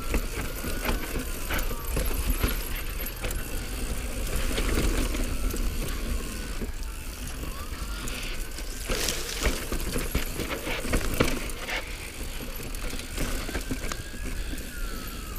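Mountain bike riding fast down rocky dirt singletrack: tyres running over dirt and stones, with frequent knocks and rattles from the bike over bumps. Wind rumbles on the microphone.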